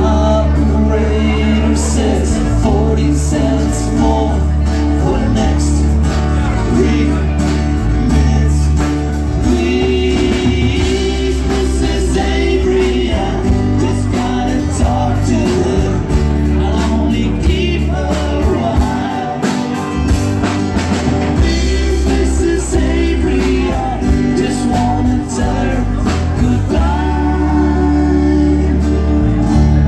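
A live band playing a song, with a lead vocal over steady bass notes.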